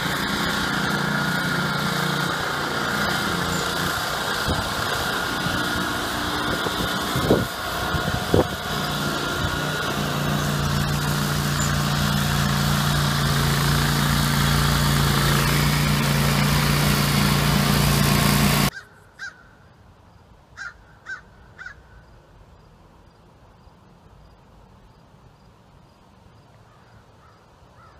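Billy Goat 24" Outback brush cutter's 13 HP 388cc Honda single-cylinder engine running steadily as it mows tall grass, with two sharp knocks about seven and eight seconds in. The engine sound cuts off suddenly after about eighteen seconds, and a crow caws four times in the quiet that follows.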